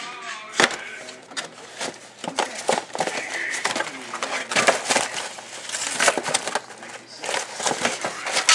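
Cardboard box of frozen croissant sandwiches being handled on a tile countertop and torn open at one end: a run of irregular clicks, taps and scrapes with crinkling cardboard.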